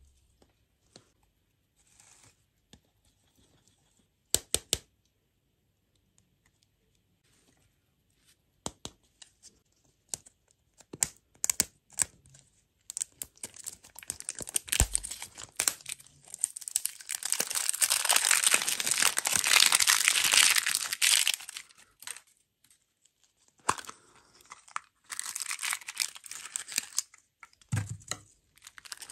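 A printed plastic wrapper being peeled and crinkled off a ball-shaped lollipop, with a long stretch of crackling tearing in the middle and another short burst of crinkling near the end. A few separate sharp clicks and taps come before it.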